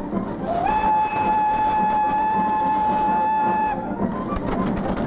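Steam locomotive whistle blowing one long steady blast of about three seconds that slides up in pitch as it starts, over the running noise of the train.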